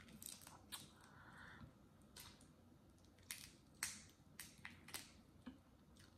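Boiled crawfish shells being cracked and peeled by hand: a faint, irregular string of sharp clicks and crackles as the shell segments snap apart.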